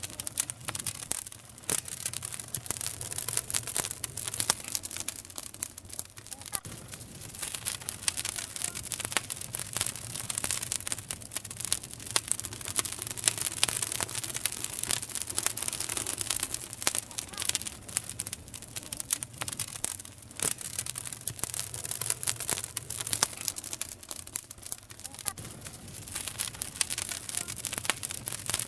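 Campfire wood burning, with dense crackling and frequent sharp pops over a steady hiss, and a faint low hum underneath.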